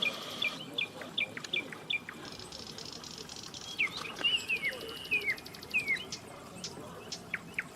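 Small birds chirping outdoors, a string of short chirps that slide downward in pitch, repeated throughout. A high, rapidly pulsing buzz comes and goes behind them.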